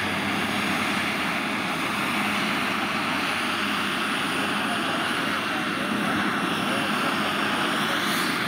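Large turbine-powered RC scale model helicopter, a Witte Hughes 500 with a PHT-3 turbine, hovering low: the turbine and rotors run as a steady, even rush of noise.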